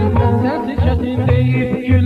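Music from a late-1980s song recording: an ornamented melody that wavers in pitch, over a pulsing bass line.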